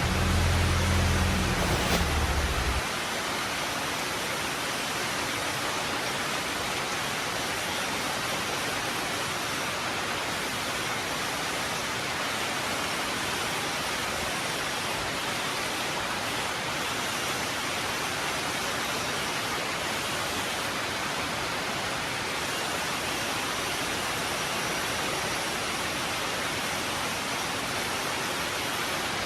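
Heavy rain pouring down steadily on the roof and street, an even hiss of falling water. A low hum sits under it for the first few seconds and then stops.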